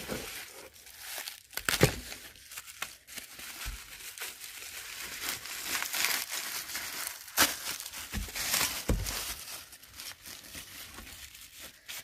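Plastic bubble wrap crinkling and rustling as it is unwrapped from a packed item, with a few sharper crackles.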